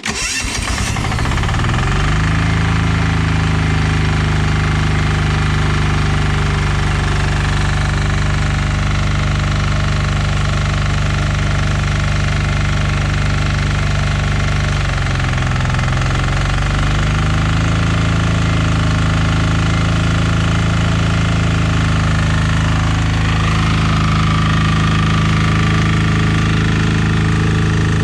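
Fermont MEP-831A generator's single-cylinder diesel engine starting and settling into a steady run within about two seconds. About fifteen seconds in, its pitch sags briefly and then recovers.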